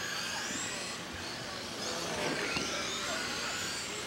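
Several radio-controlled dirt oval race cars running laps together, their electric motors whining high, the pitches rising and falling as the cars speed up and slow through the turns.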